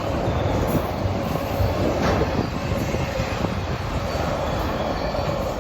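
Freight cars of a Norfolk Southern manifest train rolling past a grade crossing: a steady rumble of steel wheels on the rails, with a few sharp clicks.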